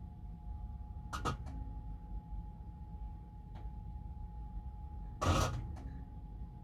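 Samsung Eco Bubble washing machine running with a steady low hum and a faint steady whine, broken by a short knock about a second in and a louder clunk about five seconds in. These are the faulty noises the machine makes before it stops mid-programme.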